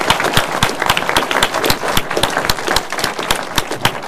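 Audience applauding: a dense, steady clatter of many hands clapping.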